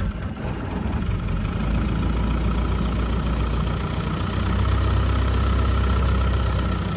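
Long-tail boat engine running steadily under way, with a strong deep rumble that grows a little louder about a second and a half in.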